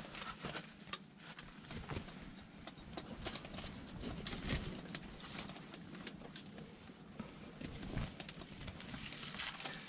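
Irregular light clicks and knocks as a dip net is handled and worked in the ice-fishing hole.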